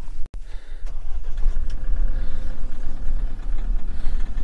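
Mahindra Thar's engine starting from cold in sub-zero temperatures and settling into a steady low running rumble.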